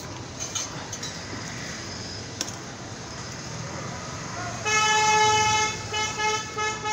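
A vehicle horn honking about two-thirds of the way in: one long blast, then a few short toots, over a steady background hum of the street.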